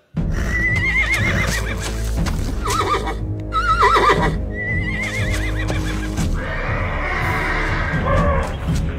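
Horses whinnying four times, trilling calls in the first five or six seconds, over a steady film-score music bed.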